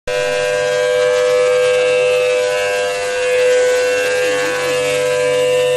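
A loud, steady, unchanging machine whine with one fixed pitch and many overtones, as from a motor or pump running on a workshop floor.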